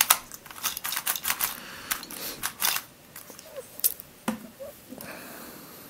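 Plastic twisty puzzle being turned by hand: a quick run of clacking clicks from its pieces over the first three seconds, then a few scattered clicks and handling noises.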